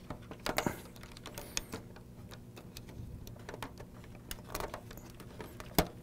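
Scattered small clicks, taps and handling rustle of hands working a 120 mm case fan against a PC case while pulling its silicone mounting pegs through the holes. There is a small cluster of clicks about half a second in and one sharper click near the end.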